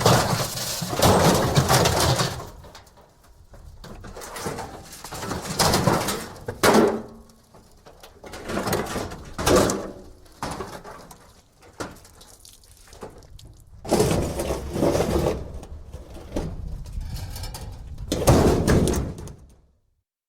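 Thin metal debris (sheet tin and scrap from appliances) being shaken and scraped: a series of irregular rattling, scraping bursts of different lengths with short gaps between them, stopping near the end.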